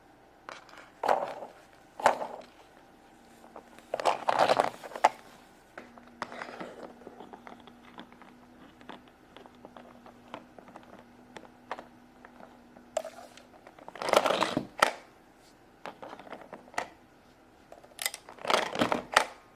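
Small plastic toy pieces being handled and set down: scattered rustles with light clicks and taps, the loudest rustles about a second in, around four seconds, around fourteen seconds and near the end.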